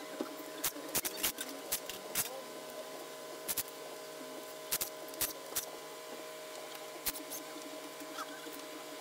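Irregular metallic clicks and clanks of tools and parts being handled on a dismantled engine during teardown, over a steady background hum.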